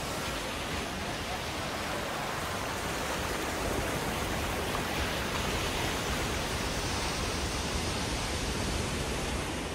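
Surf breaking and churning over shoreline rocks, a dense continuous rush of water that swells slightly midway.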